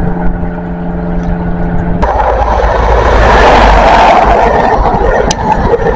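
CrossCountry High Speed Train's Mk3 coaches passing close at speed: a loud rush of wheel and rail noise that starts abruptly about two seconds in and swells to a peak a second or two later. Before it comes a steady droning hum that cuts off sharply.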